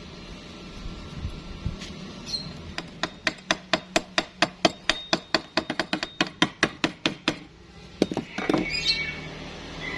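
A hammer striking metal in a rapid run of sharp blows, about five or six a second, starting about three seconds in and stopping after four to five seconds. A few single knocks follow near the end.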